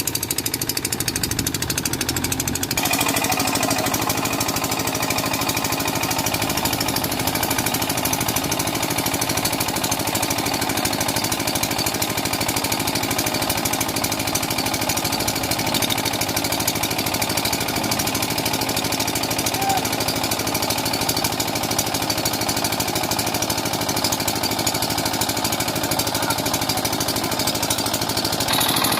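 Diesel engine of a JCB 3DX backhoe loader running steadily with a rattling clatter. The sound changes abruptly about three seconds in and again near the end.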